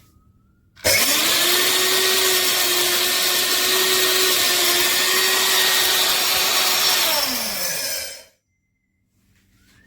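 High-speed electric grain mill's motor running: it starts abruptly about a second in, holds a steady whine for about six seconds, then winds down with falling pitch and stops.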